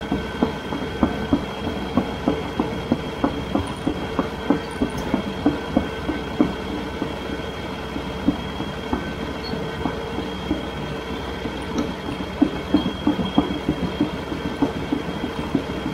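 CAT D6 bulldozer working: its engine and drive run with a steady whine over the uneven clanking of its steel tracks, a few knocks a second.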